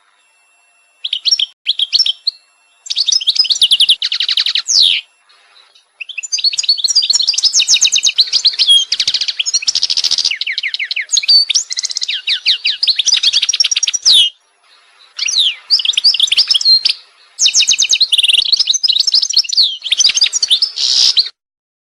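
A small songbird singing long phrases of rapid, high trills and chirps, broken by short pauses.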